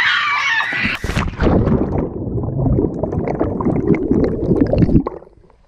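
A splash as a person plunges into a swimming pool about a second in. It is followed by muffled underwater churning and bubbling, heard with the microphone submerged, which fades out sharply near the end.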